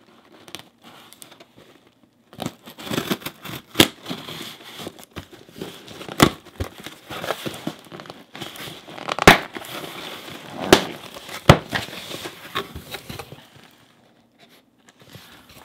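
Shipping package being opened by hand: packaging crinkling and tearing, with several sharp snaps along the way.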